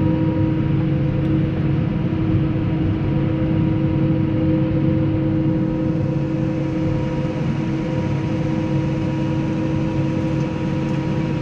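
New Holland T6.180 tractor running at steady revs with the PTO engaged, driving the slurry tanker's spreading pump. A constant mechanical drone with a steady hum, heard from inside the cab.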